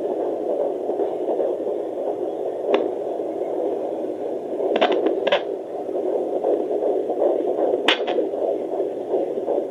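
Handheld fetal Doppler's loudspeaker playing an unborn baby's heartbeat: a fast, steady whooshing pulse of about 145 beats a minute over a hiss. A few short clicks break in now and then.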